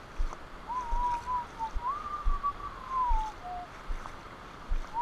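A person whistling a slow, wandering tune of a few held notes that slide up and down, starting under a second in and stopping a little over a second before the end. Wind buffets the microphone with low thumps throughout.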